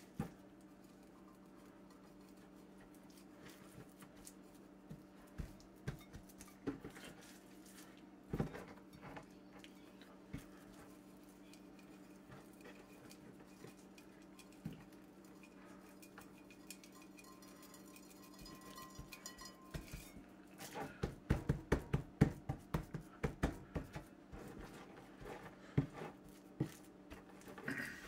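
Hands rubbing and patting a spice dry rub into a raw pork shoulder on a wooden cutting board: scattered soft taps and small clicks, with a quick run of sharper taps about three-quarters of the way through, over a steady low hum.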